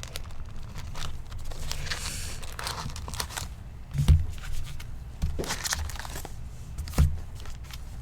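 Foil-wrapped trading card packs being lifted out of a cardboard box and handled, with the wrappers crinkling and cardboard rustling. Two soft thumps, about four seconds in and near the end, as packs or the box are set down.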